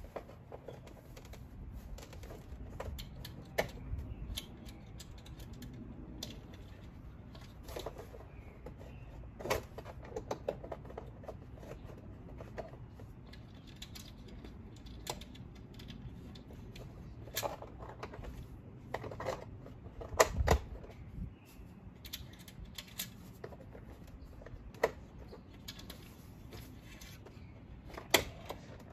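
Scattered light clicks and knocks of a planked wall sign being pressed and shifted on plastic siding hooks against vinyl siding, the loudest knocks about twenty seconds in and again near the end.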